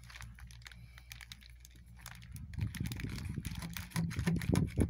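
Close handling noise of scissors cutting into a dead bird on a plastic bin bag: rapid small clicks and plastic crinkling, sparse at first and louder and denser from about halfway in, over a low rumble.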